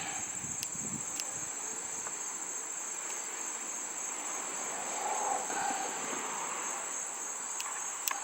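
Steady high-pitched chirring of insects, with faint scraping and a few light clicks as a screwdriver spreads two-part epoxy (JB Weld) over a hole in an outboard engine block.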